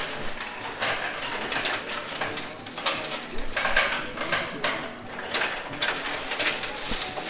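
Coins clinking and clattering against one another in a coin pusher machine: a steady run of irregular light metallic clicks.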